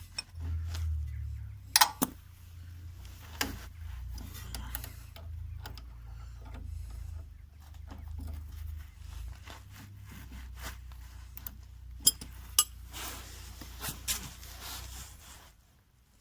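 Hand tools working on car suspension bolts: metal clinks, rubbing and a few sharp metallic clicks as the stabilizer bar's mounting bolts are tightened, over a low rumble of handling noise. It all stops shortly before the end.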